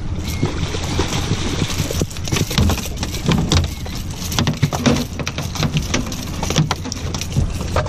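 Boat's outboard motor running in neutral with a steady low hum, under a rapid, irregular clatter of knocks and taps.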